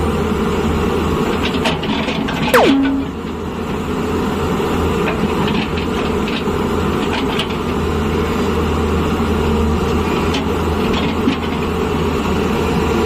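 Hyundai crawler excavator's diesel engine running steadily under load as the boom and bucket trim a soil slope. A short falling whistle sounds about two and a half seconds in.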